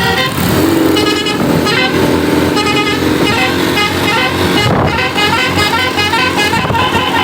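A bus's Basuri telolet air horn, with several trumpets, playing a fast tune of short stepped notes over a lower held horn tone.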